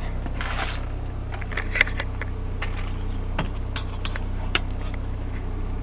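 Scattered light clicks, taps and scrapes of objects being handled during measuring, with one sharper click about two seconds in, over a steady low hum.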